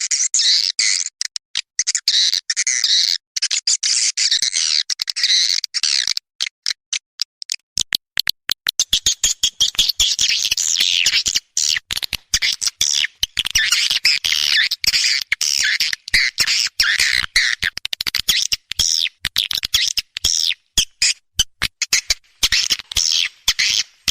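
Recorded swiftlet calls, the lure sound played to draw edible-nest swiftlets into a swiftlet house: dense, high twittering chirps in rapid trills, chopped by many short gaps. From about a third of the way in, sharp clicks run through the chirping.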